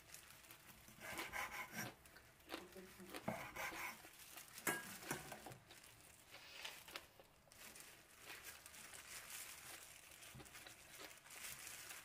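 Something being handled: irregular rustling and crinkling with a few light knocks, the sharpest about four and a half seconds in.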